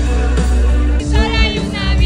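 Live pop band playing at a concert, with heavy bass and drums and a voice singing from about a second in.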